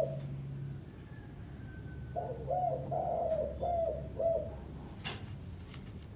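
A dove cooing: a short coo at the start, then a phrase of several coos starting about two seconds in and lasting about two seconds. A sharp click follows about five seconds in.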